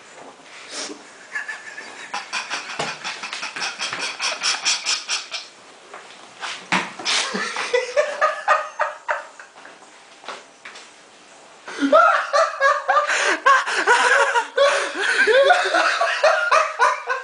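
Stifled laughter in quick rhythmic pulses, fading for a couple of seconds, then breaking into loud laughter about twelve seconds in.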